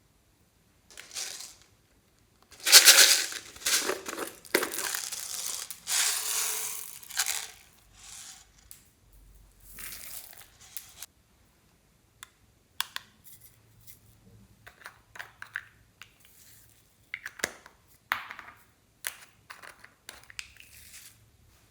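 Slime being kneaded and squeezed by hand: dense crackling for the first several seconds, then scattered small clicks and pops.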